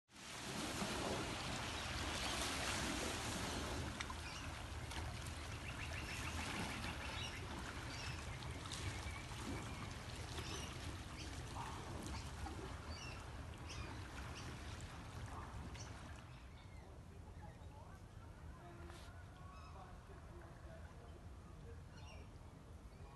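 Outdoor ambience with birds calling in short, repeated notes over a steady low rumble and hiss. The rumble is loudest at the start and eases off in the second half.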